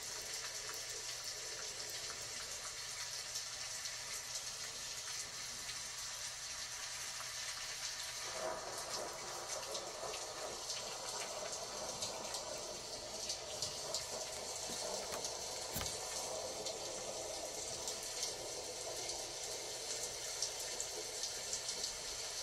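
Steady rain, an even hiss scattered with small pattering ticks, growing fuller and deeper about eight seconds in.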